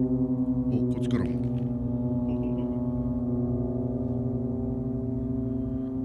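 Several ship whistles (horns) sounding together in long, steady, overlapping blasts, the traditional New Year's greeting from moored ships. A brief falling tone cuts across them about a second in.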